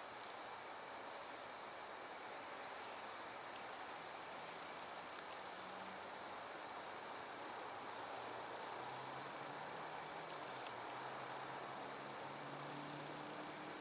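Faint outdoor ambience: insects trilling steadily at a high pitch, with a few short high chirps every second or two. A faint low drone comes in during the second half.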